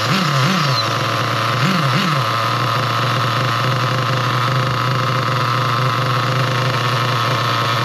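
Nitro RC car's glow engine running just after starting, with four quick throttle blips in the first two seconds, then idling steadily. The low-speed needle has been leaned back in to a good-sounding setting.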